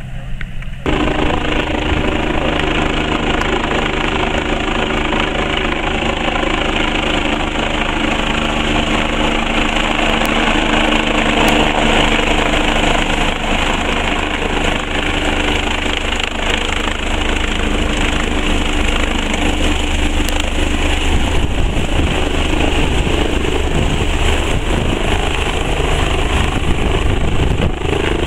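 Turbine helicopter flying and hovering close by: a loud, steady rotor and engine noise that starts abruptly about a second in. A steady hum in it drops out about two-thirds of the way through.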